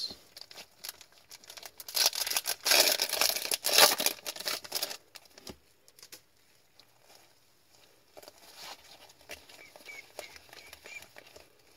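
A hockey card pack's wrapper torn open and crinkled in loud crackling for about three seconds, then fainter rustling and ticking of the cards being slid and flicked through by gloved hands.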